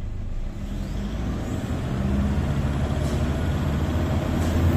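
Toyota 1KD-FTV 3.0-litre four-cylinder turbodiesel revved up from idle to about 2,500 rpm and held, heard from inside the cab. The engine is being run up to around three thousand rpm to check whether the large-fuel-leak (P0093) fault has cleared after the ECU repair.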